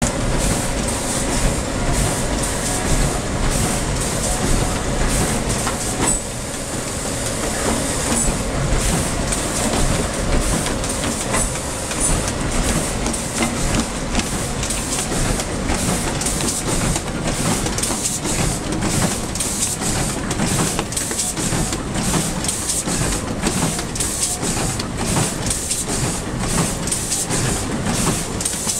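Wohlenberg 44FS50 three-knife trimmer and its conveyors running: a steady mechanical clatter with rapid, repeated clicking.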